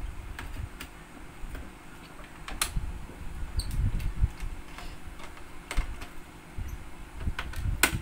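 Small screwdriver working screws on a laptop's motherboard and case: scattered light clicks and taps, with dull knocks from the laptop being handled on the table.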